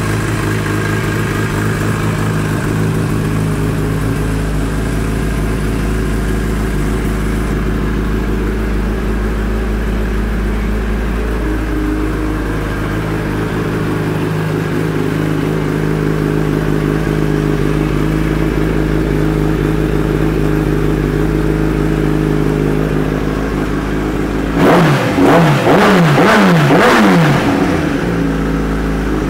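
A 2015 Kawasaki ZX-10R's inline-four engine, fitted with an Austin Racing aftermarket exhaust, idling steadily. Near the end it is revved in about four quick throttle blips, each rising and falling in pitch.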